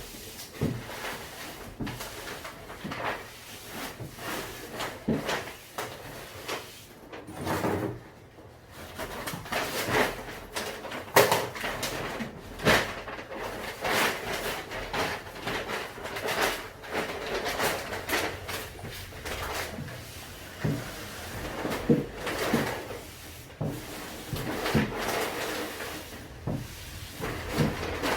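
Irregular clicks, knocks and short scrapes of door hardware being handled and worked on, with no steady machine sound.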